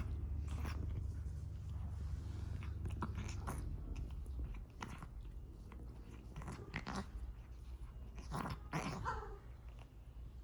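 Cat grooming himself: irregular licking and nibbling clicks, with a short pitched sound near the end. A steady low hum underneath fades out about halfway.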